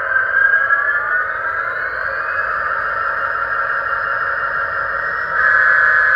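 HO scale model train running on the layout: a steady mechanical whine whose pitch rises in the first couple of seconds as the locomotive picks up speed. It turns louder and brighter about five seconds in.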